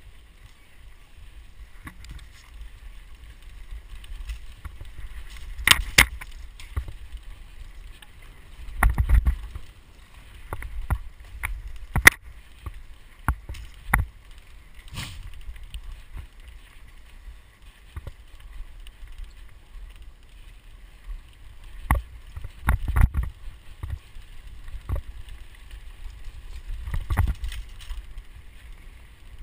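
Mountain bike ridden fast along a bumpy forest dirt trail: a steady low rumble of wind and tyres on the ground, with irregular sharp knocks and rattles as the bike hits bumps.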